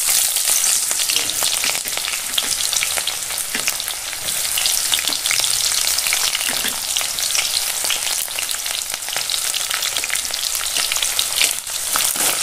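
Sliced onions sizzling in hot mustard oil with dried red chillies in a wok: a steady, dense hiss full of fine crackles, the oil just hit by the freshly added onions on a high flame. Near the end a metal spatula starts stirring them.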